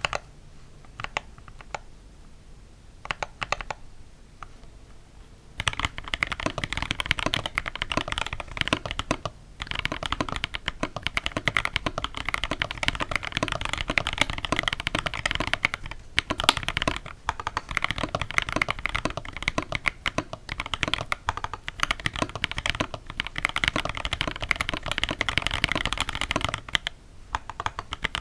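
Close-miked typing on a mechanical keyboard whose switches have heavily greased springs and leaves, to damp spring ping and leaf ringing. A few separate keypresses come first, then from about six seconds in fast continuous typing with two short pauses, stopping about a second before the end.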